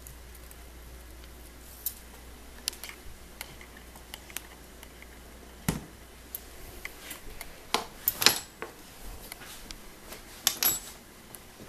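Scattered clicks, knocks and clatters of a glass-fronted reptile enclosure being handled. There is a sharp knock about six seconds in, and the loudest clatters come around eight seconds in and again near the end.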